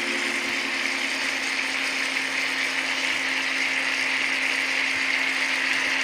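Fish curry with chunks of chayote sizzling and simmering in a pan: a steady hiss.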